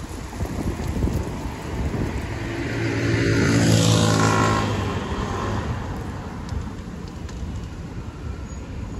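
A road vehicle drives past, its engine hum and tyre noise swelling to a peak about four seconds in and then fading away, over general traffic background. Low wind rumble on the microphone near the start.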